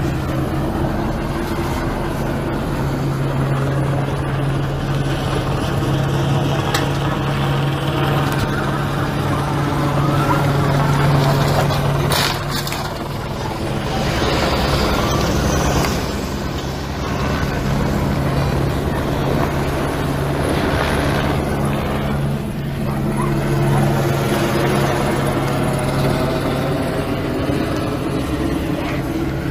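A vehicle engine running close by in a steady low drone that swells and eases, with a sharp knock about twelve seconds in.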